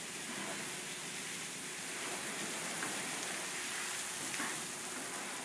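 Water jets of a PDQ LaserWash touchless in-bay car wash spraying a car, a steady hiss of spray with water falling on the car body and the bay floor.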